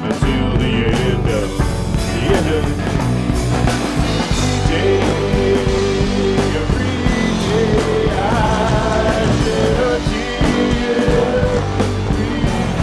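Rock band playing live: electric guitar, bass and drum kit, with held, wavering melody notes over steady drumming.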